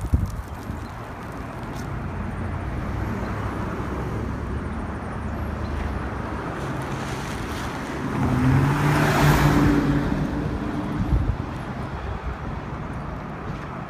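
A car driving past on the street, its engine hum and tyre noise swelling to a peak about nine seconds in and then fading, over steady wind buffeting the microphone.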